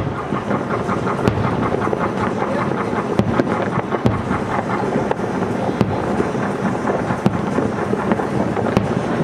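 Aerial fireworks shells bursting in quick succession: a continuous rumbling of booms, with sharp cracks standing out every second or so.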